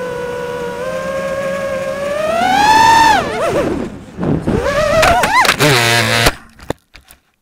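FPV racing quadcopter's brushless motors and propellers whining steadily, rising in pitch about two and a half seconds in as the throttle goes up, then swinging sharply up and down. Near the end a harsh buzz as the quad goes into the grass, then the motors cut off suddenly, with a few faint clicks.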